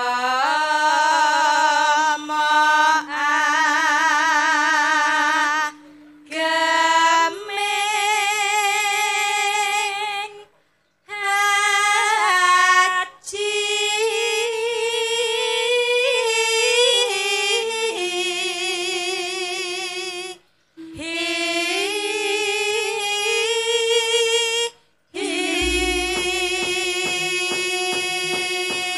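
Sinden (female Javanese gamelan singers) singing long held phrases with wide vibrato into microphones. The phrases are broken by several sudden gaps. A run of low thuds comes in under the last phrase.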